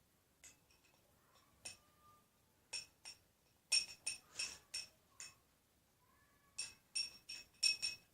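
A mixing utensil clinking irregularly against the side of a hard bowl, each knock ringing briefly at the same pitch, while slime ingredients are stirred. The knocks come loose and uneven, bunching together in two flurries in the middle and near the end.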